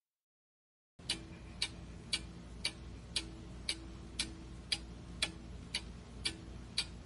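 Clock ticking steadily, about two ticks a second, starting about a second in.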